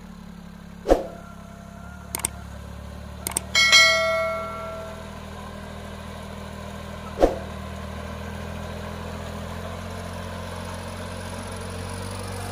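Sonalika GT 26 mini tractor's diesel engine running steadily, pulling a loaded trolley. Two sharp knocks come about a second in and about seven seconds in, and a ringing metallic clang comes near four seconds.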